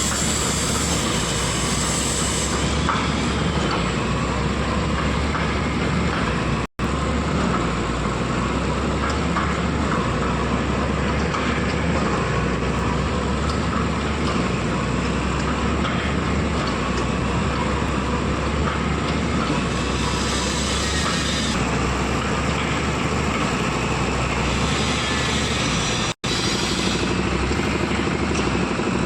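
Heavy construction machinery running steadily, a loud continuous engine drone with a low hum under it, cut off for an instant twice.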